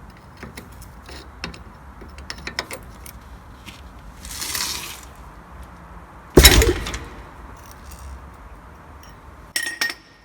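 A Mercedes-Benz E220 W211 dropped sharply off a jack: light metallic clicks and rattles, a short rushing noise, then one heavy thump about six seconds in as the car lands on its suspension. No squeak follows from the rear floating silent block (suspension bushing), which has just been filled with engine oil.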